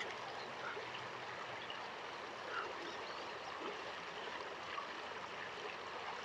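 Creek water running steadily, an even rushing sound.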